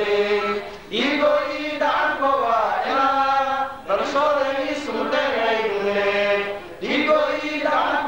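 Men chanting a Maay Somali song (hees) into a handheld microphone, in repeated phrases with held notes, a new phrase starting about every three seconds.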